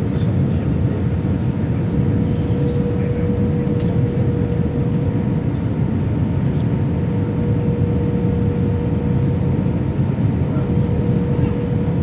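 Airliner cabin noise during descent to landing: a steady roar of jet engines and airflow, with a constant hum riding on top.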